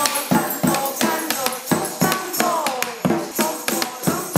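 Upbeat music with a steady beat of jingling percussion under a melody, one line sliding down in pitch about halfway through.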